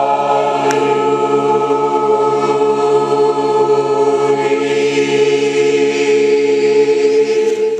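Mixed choir of basses, tenors, altos and sopranos singing together, holding one long steady chord on 'hey' that cuts off at the end. The director hears it as fairly balanced, with the tenors a little soft.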